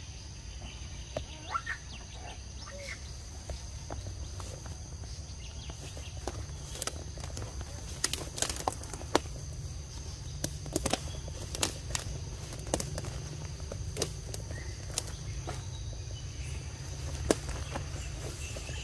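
Forest ambience: a steady high insect drone over a low rumble, with scattered sharp clicks and snaps, most of them in the middle of the stretch.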